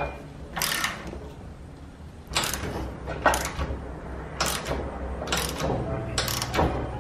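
Ratchet wrench clicking in several short, irregularly spaced rasping bursts as a 7/16 bolt is forced into a tight hole in a steel mower-deck bracket. The bolt is binding and shaving metal out of the hole, and the owner thinks it looks cross-threaded.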